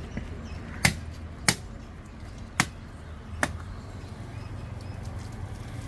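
Four sharp, separate knocks at uneven intervals over a low, steady rumble.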